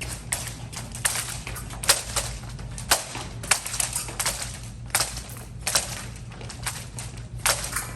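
Épée fencing bout in progress: irregular sharp clicks and clatter of blades meeting, mixed with the fencers' footwork on the strip, several impacts a second.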